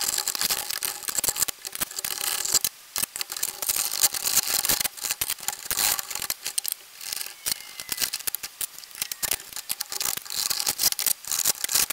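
Plastic parts of a 3D-printed clock movement clicking and rattling as they are handled and pulled apart: a rapid, uneven run of small clicks and knocks.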